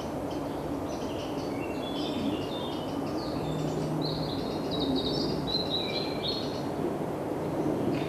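Woodland birds chirping and singing in quick runs of short high notes, busiest in the middle, over a steady low background rumble.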